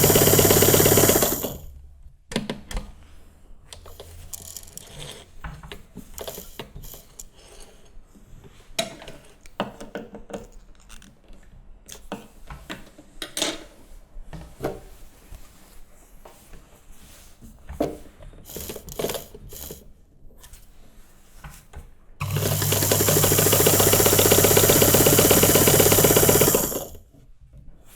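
Electric sewing machine stitching at a steady speed, stopping about a second in. Then a long quieter stretch of scattered small clicks and knocks, before the machine runs again for about four seconds near the end and stops.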